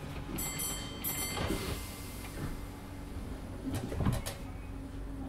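Class 507 electric multiple unit's sliding passenger doors closing at a station stop. Two short high-pitched tones with a hiss sound about half a second and a second in. A cluster of knocks follows about four seconds in as the doors shut.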